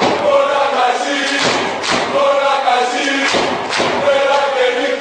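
Football supporters chanting together, many voices singing a sustained, melodic chant, with loud thumps struck twice in pairs, about a second and a half in and again about three and a half seconds in.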